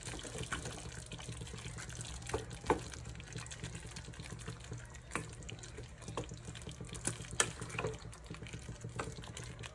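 Wooden spoon stirring a thick, saucy meat stew in a pot, giving wet squelching with scattered sharp clicks as the spoon knocks the pot. A steady low hum runs underneath.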